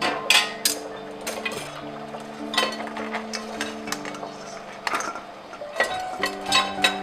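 Stainless steel tongs and cookware clinking and clattering, metal on metal, as the tongs knock against a steamer pot and a steel bowl: a string of sharp clinks, with a cluster about a third of the way through. Soft background music runs underneath.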